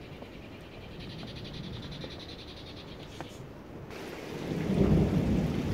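A faint, high, rapidly pulsing animal trill. About four seconds in it gives way to the louder, steady rush of muddy rainwater runoff flowing down a small channel.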